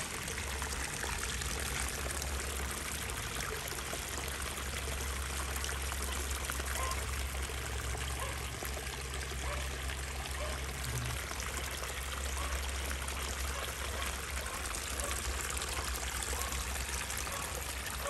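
Water trickling and pouring steadily into a small pond.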